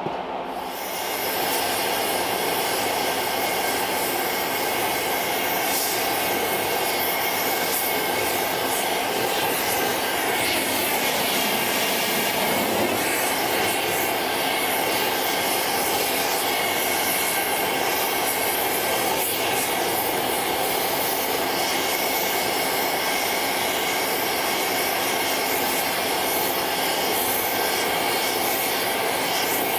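Oxy-fuel heating torch burning steadily on a steel steering arm, a constant rush of gas and flame that comes up to full strength in about the first second. The arm is being heated so it can be bent.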